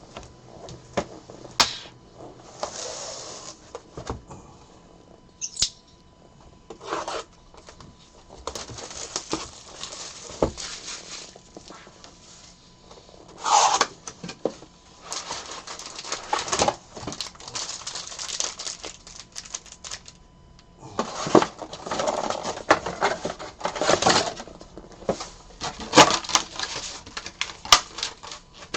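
Trading-card box and foil packs being opened by hand: irregular crinkling and tearing of packaging, with many small clicks and taps as cardboard and cards are handled.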